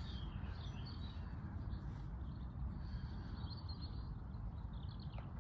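Faint small-bird chirps and short whistles over a steady low rumble of outdoor background noise.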